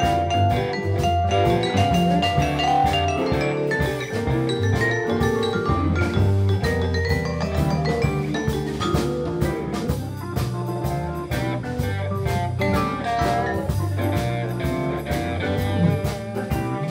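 Live blues band playing an instrumental passage: electric guitars, bass guitar, drum kit and keyboard, with a steady beat and no singing.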